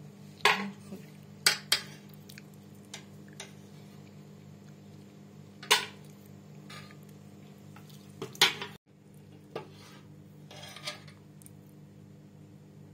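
Metal ladle clinking against the rim and sides of a large stainless-steel cooking pot as pieces of boiled meat on the bone are lifted out of the broth: several sharp clinks at irregular intervals, the loudest about half a second and about eight and a half seconds in.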